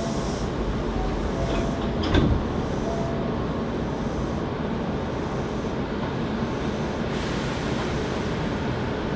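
Running noise inside a Hankyu 7300 series train car pulling away from a station: a steady rumble, with a knock of the wheels over a rail joint about two seconds in. The car is known for its unusual running noise.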